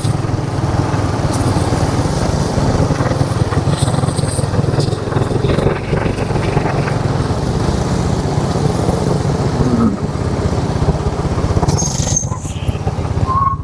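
Motorcycle engine running at steady speed while riding, a fast even pulse low down under a haze of wind and road noise.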